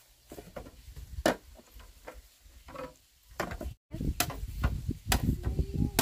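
Irregular knocks and taps, then a denser run of low thuds and knocks after a brief cut about four seconds in.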